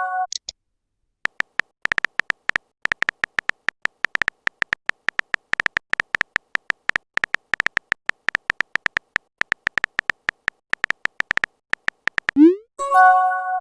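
Phone keyboard typing clicks: rapid, irregular short ticks for most of the stretch, then near the end a rising whoosh and a short chime, a text message being sent.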